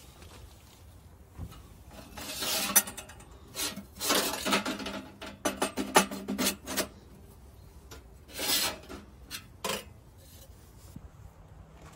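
Steel stovepipe sections scraping and clinking as they are slid out of a small sheet-steel camp stove's firebox: metal rubbing on metal in several bursts, the longest lasting about three seconds.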